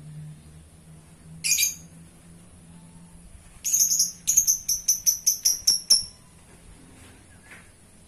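Lovebird calling: one sharp, shrill call, then about two seconds later a rapid run of about ten shrill calls that grow shorter and quicker toward the end.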